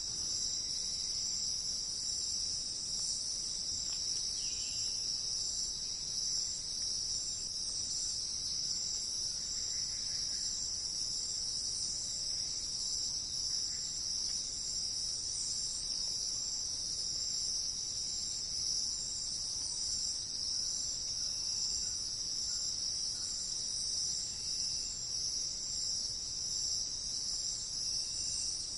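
Steady, unbroken high-pitched chorus of insects in a forest, with a few faint short bird notes here and there.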